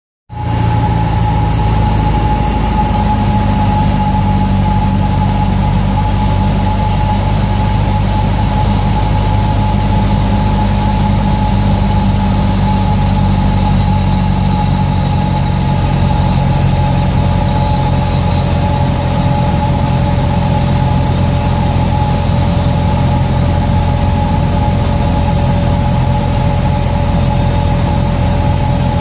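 Cessna 172's six-cylinder Continental O-300 engine and propeller running steadily in flight, heard from inside the cockpit as a loud even drone with a thin steady whine above it.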